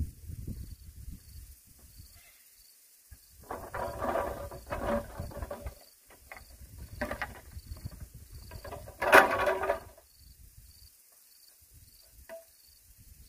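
Faint insect chirping, a short high note repeating evenly a little faster than once a second, with a few louder bursts of noise about four and nine seconds in.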